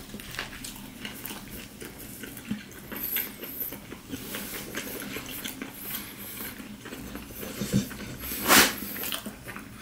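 A person chewing a mouthful of crispy fried chicken sandwich close to the microphone: soft, irregular crunches and wet mouth clicks. There is a short, louder noisy sound about eight and a half seconds in.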